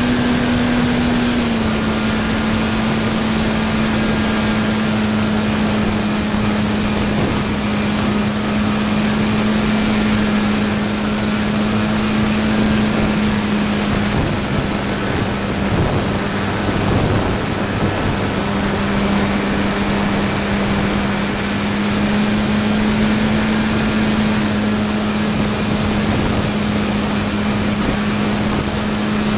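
RC park-flyer plane's motor and propeller in flight, heard up close from a camera in the cockpit: a steady drone whose pitch drops slightly about a second and a half in and climbs a little again near the end, with rushing airflow noise.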